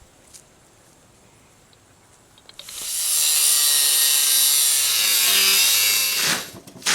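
Sheets of metal being dragged out from under wooden slats, a loud scraping rasp that starts about two and a half seconds in and lasts several seconds, with a second short scrape at the end.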